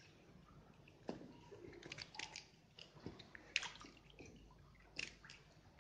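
A hooked baby barracuda splashing and thrashing at the water's surface as it is pulled up on the line: faint, irregular wet splashes and slaps, the sharpest about three and a half seconds in and again at five seconds.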